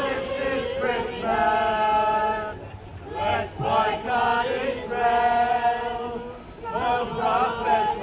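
A small group of carolers singing a Christmas carol together, with a woman's voice leading through a microphone; the notes are held long, a second or more each.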